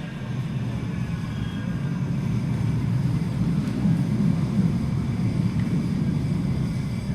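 Subway train rumbling along the track as it comes in, a deep low rumble that builds to its loudest a few seconds in and then eases slightly.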